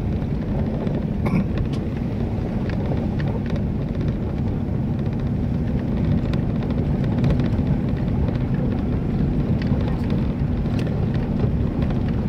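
A vehicle driving over a rough dirt track, heard from inside: a steady low rumble of engine and tyres, with scattered brief knocks and rattles from the bumps.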